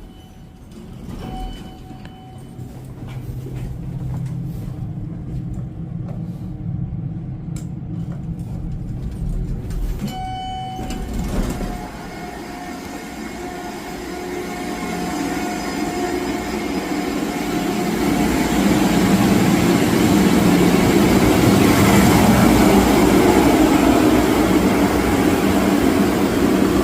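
Building elevator: a short chime, a second chime with clicking as the doors work, then the car's mechanical hum, which grows steadily louder and then holds steady.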